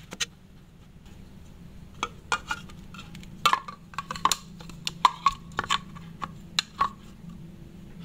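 A steel wristwatch on a rubber strap tapping and clinking against a plastic container of water as it is lowered in. About a dozen sharp taps come from about two seconds in to near the end, over a steady low hum.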